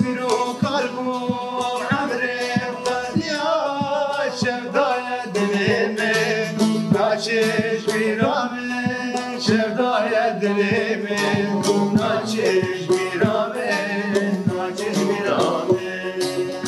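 A Kurdish folk song: a man sings over a long-necked saz (bağlama) and a banjo-bodied long-necked lute, both plucked in a quick, busy rhythm.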